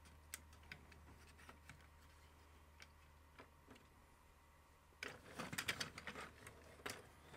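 Faint, scattered plastic clicks and taps as a white plastic rod roll bar is held and fitted against a plastic toy vehicle, then a busier run of clicking and handling noise about five seconds in as the toy is moved and turned.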